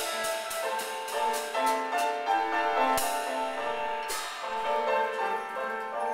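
Live jazz quartet playing: flute lines over piano chords, with drums and a couple of cymbal crashes about three and four seconds in.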